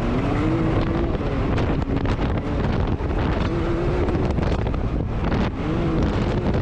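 Off-road vehicle engines running and revving, their pitch rising and falling, with wind buffeting the microphone.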